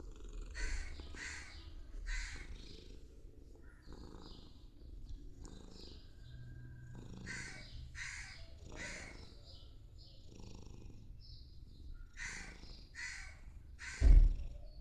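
A cat purring with a low rumble, while crows caw in three runs of three calls each. There is a loud thump near the end.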